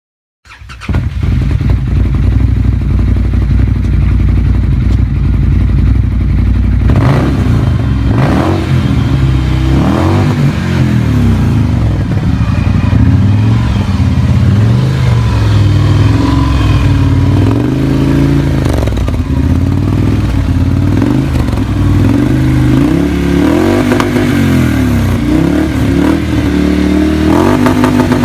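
Arctic Cat Wildcat 1000 side-by-side's V-twin engine through a Yoshimura RS-4 slip-on exhaust. It cuts in abruptly about half a second in, then runs loud, with the pitch rising and falling again and again as the engine revs and the machine drives.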